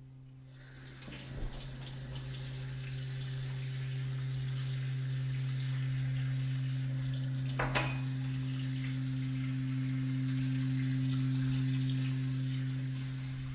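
A steady, low, pure-sounding electronic drone tone with a fainter higher tone above it. It slowly swells and stops just before the end, over a soft hiss, with one brief crackle about eight seconds in.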